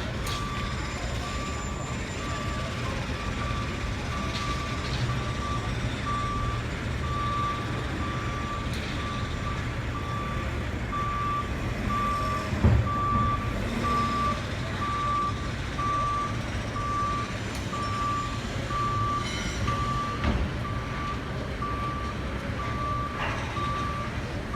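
A truck's reversing alarm beeping steadily, a single tone repeating a little more than once a second, over the low rumble of its diesel engine, with a sharp knock about halfway through.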